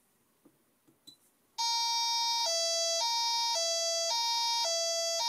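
Small loudspeaker driven by an electronic two-tone siren circuit, sounding a harsh, buzzy hi-lo tone. It starts about a second and a half in and switches between a higher and a lower pitch about every half second. A few soft clicks come just before it.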